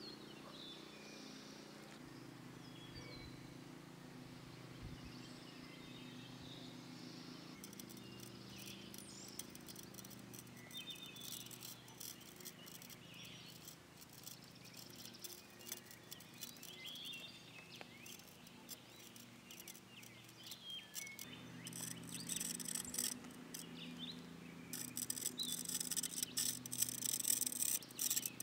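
Scratchy strokes of a pencil-fitted scribing compass dragged along a rounded boulder and the foot of a timber post, scribing the stone's contour onto the post; the scratching starts a third of the way in and grows denser and louder toward the end. Birds chirp faintly throughout.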